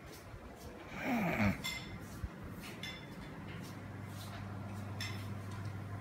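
Ceiling-mounted Carrier air conditioner indoor unit running with a steady low hum. About a second in, a short breathy vocal sound with a falling pitch is the loudest thing. Several light clinks of tableware follow over the next few seconds.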